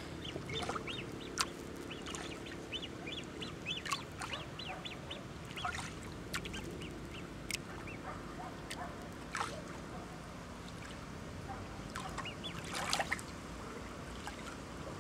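Waterfowl calling in quick series of short notes, over water lapping and splashing close by, with several sharp splashes.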